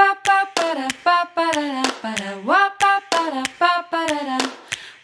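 A cappella scat singing: one voice singing wordless syllables like 'ba-ba-da-da-ba-da-wop' in short bouncy phrases, with sharp clicks between the notes and one upward swoop in pitch a little past two seconds in.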